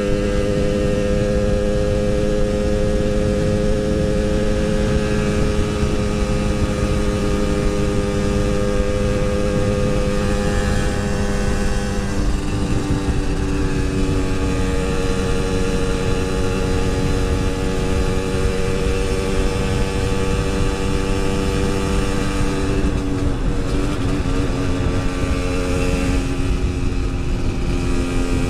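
Yamaha RX-King 135cc single-cylinder two-stroke engine running steadily as the motorcycle is ridden, over a steady rushing noise. Its note shifts pitch a few times, once near the middle and twice more near the end.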